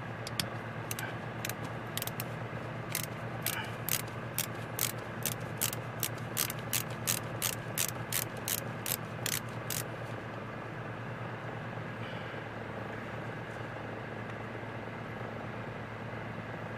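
A run of sharp metallic clicks, about two a second and quickening for a while, from a hand tool working a small metering-rod cap off a carburetor; they stop about ten seconds in. A steady low hum runs underneath.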